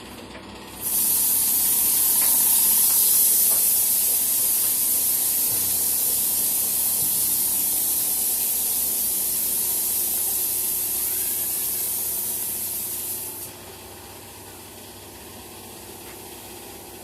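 Compressed air spraying in one long steady hiss that starts about a second in and cuts off suddenly after about twelve seconds, over a low steady hum.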